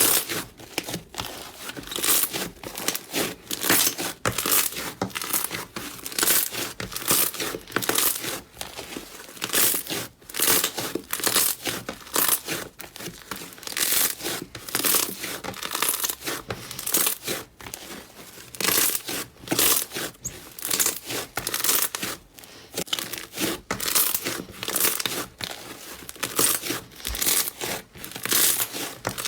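Slime being squeezed, pressed and stretched by hand, giving a quick, irregular run of crackly, squelching pops, about one or two a second.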